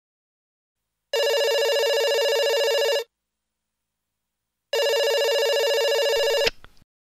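Telephone ringing: two rings of about two seconds each with a fast warble, the second cut short by a click near the end.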